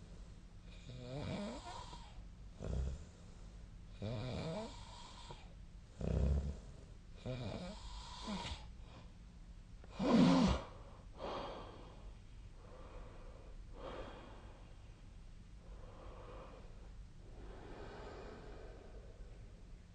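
A sleeping person snoring: a run of rasping snores and breaths, one every second or two, the loudest about ten seconds in, then softer and weaker breaths through the last several seconds.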